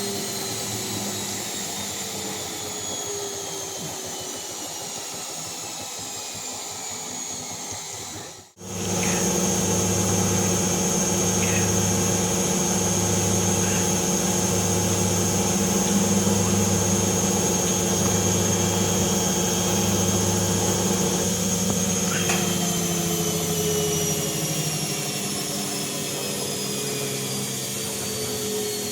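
Bauknecht WAS 1400 washing machine running, its motor hum slowly falling in pitch. It cuts out for an instant about a third of the way in, then runs louder and steady with a pulsing low hum, and begins to slow again near the end.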